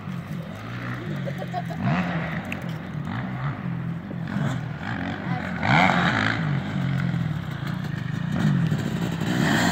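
Dirt bike engines on the track, among them a brand-new Husqvarna 250 two-stroke, revving up and dropping back over and over as the riders work through the gears. The sound grows louder near the end as the bikes come closer.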